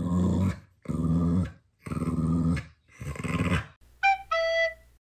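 A dog vocalizing in four drawn-out, low grumbling sounds of about two-thirds of a second each. Near the end a two-note chime sound effect follows, a higher tone then a lower one.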